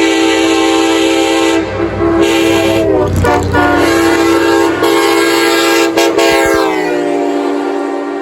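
Nathan K5LA five-chime train air horns blowing a loud, continuous chord head on in a tunnel. The chord dips about three seconds in and slides lower near the end as the horns pass each other.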